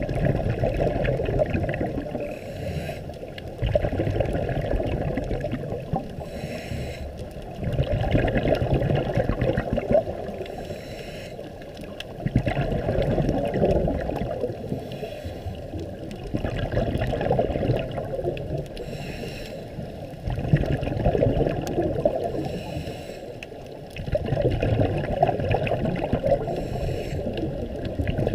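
Scuba diver breathing through a regulator underwater: a bubbly rush of exhaled air that starts sharply and fades, about every four seconds, with a faint hiss of the inhale in between.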